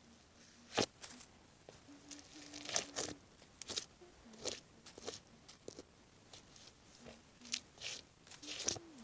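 Rubber galoshes treading on and crushing apple pieces against a concrete ledge: a string of short crunches about every half second to a second, the sharpest about a second in.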